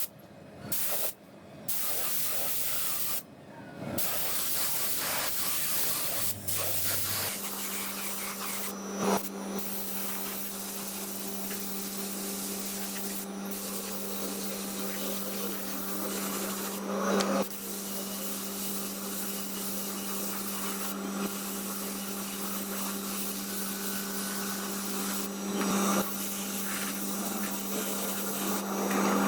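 A steady machine hum over a constant hiss, starting after a few seconds of short, chopped-up noisy snippets, with a few brief louder noises along the way.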